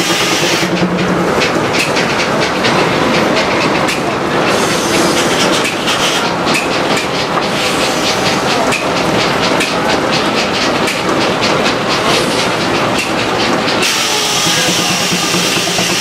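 Steam-engine-driven circular sawmill taking a cut: the log carriage and saw set up a rapid, even clattering that starts about a second in and stops near the end, with a steady machine hum before and after it.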